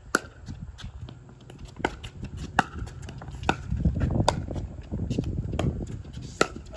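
Pickleball paddles striking the plastic ball in a rally: about six sharp pops at irregular intervals of about a second.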